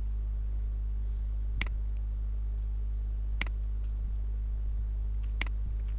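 Three single computer mouse clicks, sharp and short, roughly two seconds apart, over a steady low electrical hum.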